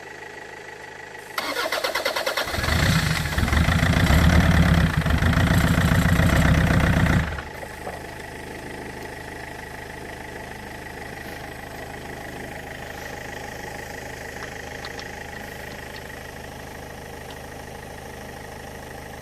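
Starter motor cranking a Land Rover Freelander's 2.0-litre L-series four-cylinder turbodiesel for about six seconds, then stopping abruptly without the engine catching. It is a no-start that the owner traces to an air leak in a fuel pipe. A steady background hum continues afterwards.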